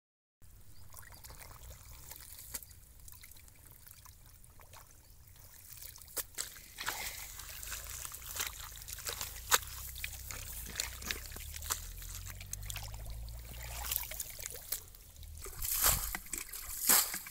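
Wet mud squelching and water splashing and trickling as hands dig through a shallow muddy ditch and scoop water out with a plastic container. The splashes are irregular over a low steady rumble and grow louder near the end.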